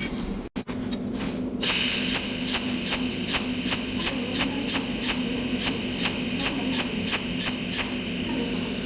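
Cold welding machine firing weld spot after spot, a regular train of short sharp zaps about two to three a second, as the tungsten fuses filler wire one spot over the tail of the last.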